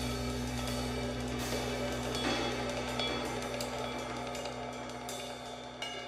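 Background music with drums and cymbals over steady held tones, slowly getting quieter.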